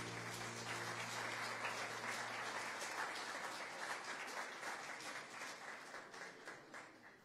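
Audience applauding, a dense patter of hand claps that thins out and fades away near the end.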